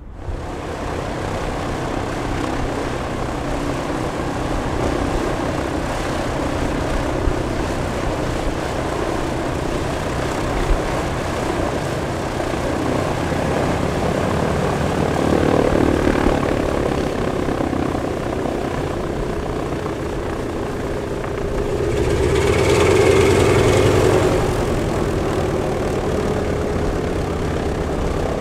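Lisunov Li-2's two Shvetsov ASh-62IR nine-cylinder radial engines running at taxi power with the propellers turning, a steady drone that grows louder for a couple of seconds about three-quarters of the way through.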